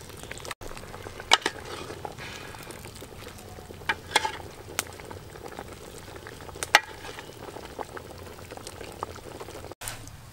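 Tofu-and-pork soup boiling in a metal pot, a steady bubbling hiss. A steel ladle clinks sharply against the pot and serving bowl a few times as soup is ladled out.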